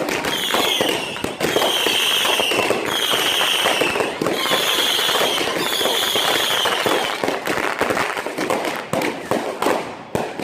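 Consumer firework cakes and a 300-shot Saturn missile battery firing together: a dense, continuous crackle of shots, with five short high whistles about a second apart over the first seven seconds. Near the end the barrage thins into separate sharp pops.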